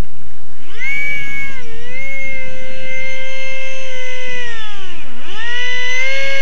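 Electric motor whine of an RC model aircraft carried close to the microphone, over heavy wind noise. The throttle comes up under a second in and holds steady, then is chopped briefly about five seconds in, the pitch dropping sharply before climbing back.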